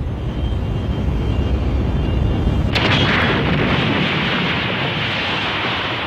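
Explosion sound effect: a low rumble with a faint high whine builds, then a sudden blast about three seconds in, followed by a long, dense rush of noise as the blast cloud spreads.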